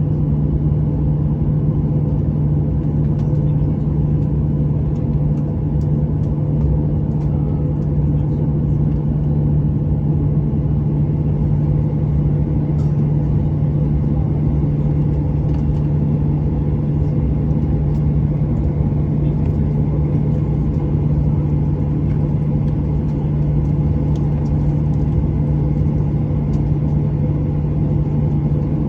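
Steady drone of a Boeing 737-800 heard from inside the passenger cabin, with a constant low hum under it and no change in pitch or level.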